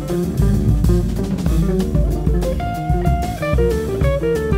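Jazz trio playing live: electric guitar, electric bass and drum kit. The guitar plays a line of single notes that moves up and down over the bass and a busy drum pattern with frequent cymbal and drum hits.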